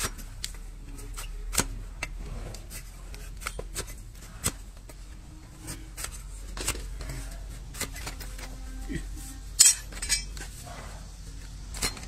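A broad flat hoof-trimming blade paring and chopping horn from a horse's hoof against a wooden stool: irregular scrapes, cracks and knocks, the loudest a sharp crack near the end.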